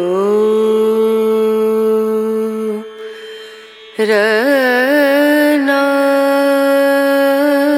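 Background music in Carnatic style: a melody of long held notes with wavering pitch ornaments. It fades out about three seconds in and comes back a second later with a second long held phrase.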